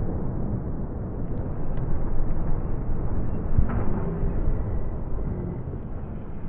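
Low, heavy rumble of a demolition blast on a concrete bridge's piers, fading slowly, with one sharp crack about three and a half seconds in.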